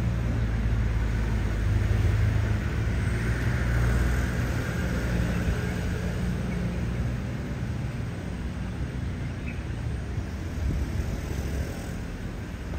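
Street traffic: a vehicle engine's low rumble, loudest in the first few seconds and then fading away.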